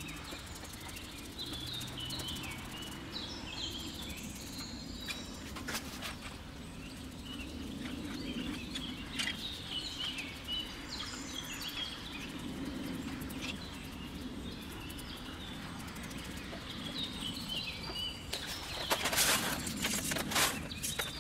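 Small birds chirping on and off over a low steady hum. Near the end comes a run of sharp clicks and rattles as expanded clay pebbles are dropped into a concrete planter.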